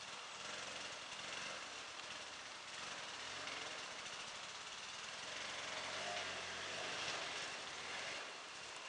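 Off-road motorcycle engine running faintly and steadily at a distance, under an even background hiss.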